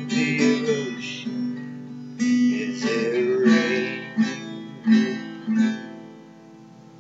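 Acoustic guitar strumming the song's closing chords: separate chords that ring on, the last two about five seconds in, then the sound dies away.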